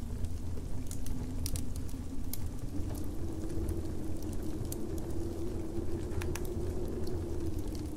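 Steady low winter wind rumble with a wood fire crackling now and then: a few sharp pops, two in the first few seconds and another about six seconds in.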